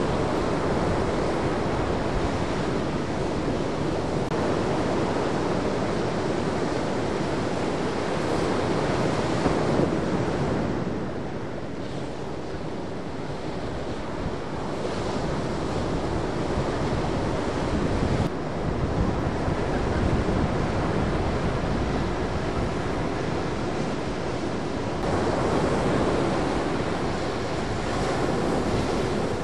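Ocean waves breaking in a shorebreak, a continuous rush of surf that eases about eleven seconds in and swells again a few seconds before the end.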